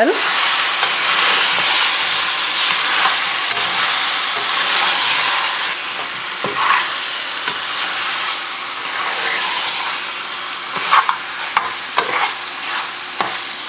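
Raw lamb cubes sizzling in hot oil in a pressure cooker pot as a metal spoon stirs them, with the spoon now and then scraping and clicking against the pot. The sizzle eases a little after about six seconds.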